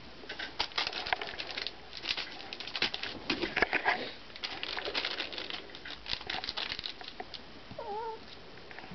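Shiba Inu puppy moving about, making a busy patter of light clicks and rustles. A brief wavering squeak comes about eight seconds in.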